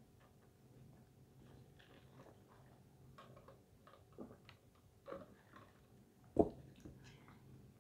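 Quiet close-up eating sounds: chewing with soft mouth clicks, then sipping a drink through a straw. About six and a half seconds in there is a single louder thump.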